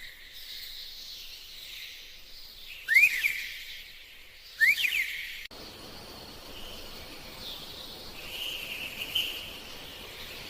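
Two short rising bird calls about a second and a half apart, over a steady background of distant birdsong and insect chirring.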